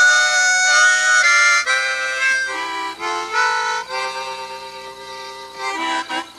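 Harmonica playing a slow melody of held notes, loud at first and softer through the middle, moving down to lower notes after a couple of seconds.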